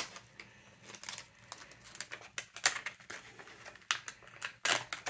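Scattered light clicks and taps of keys being typed, irregular in pace, with a few louder strikes.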